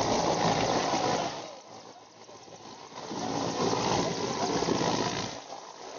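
Mil Mi-17 helicopter hovering low to land: a rushing noise of rotor and engines that fades away twice, about a second and a half in and again near the end.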